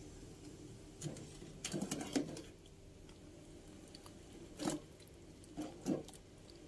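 A ladle stirring broth in a metal pot: soft scrapes and knocks against the pot, a cluster of them about a second in, then a few more near the middle and end, over a faint steady hum.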